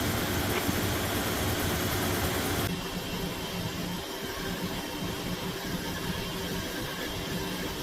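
A machine with an electric motor runs steadily with a low hum. A loud hiss over it cuts off suddenly about two and a half seconds in, and the hum carries on.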